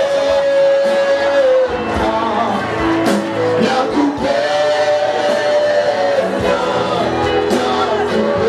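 Music with a voice singing long held notes over instrumental accompaniment.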